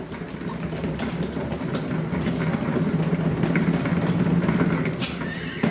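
Cat exercise wheel rolling as a kitten runs in it: a steady low rumble that grows louder toward the middle and eases near the end, with scattered light clicks.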